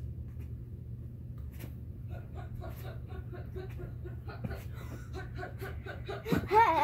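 A child giggling under a low steady hum. The giggles start faintly about two seconds in and break into a loud laugh near the end.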